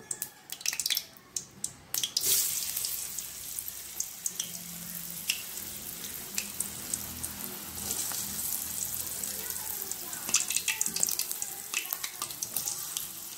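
Boiled elephant foot yam cubes frying in hot oil in an aluminium kadai. A few pops for the first two seconds, then the sizzle starts suddenly as the cubes hit the oil and runs on steadily with scattered crackles.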